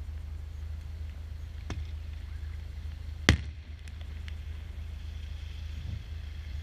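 Fireworks: one loud sharp bang about halfway through, with a fainter crack before it, as a shell of white stars bursts overhead. A steady low rumble runs underneath.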